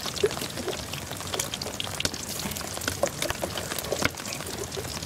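Belyashi, meat-filled dough pies, frying in hot oil in a pan: a steady sizzle with many small, sharp crackling pops.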